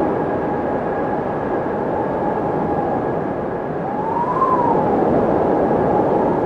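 Windmill turning in the wind: a steady whooshing hum with a faint steady tone over it, and a drawn-out squeal that rises and then falls once, lasting about a second, about four seconds in.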